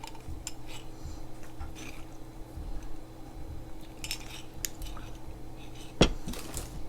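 Light scattered clinks and taps of plates and utensils on a table, with one louder knock about six seconds in, over a faint steady hum.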